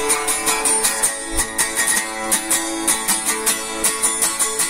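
A guitar strummed in a quick, steady rhythm, about four strokes a second.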